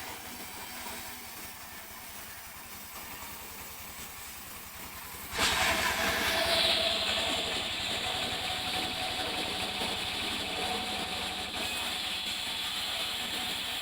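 Sawmill saw running in a steady drone; about five seconds in, the noise jumps sharply as the blade cuts into a mahogany log, and a steady whine and rasp of sawing carry on from there.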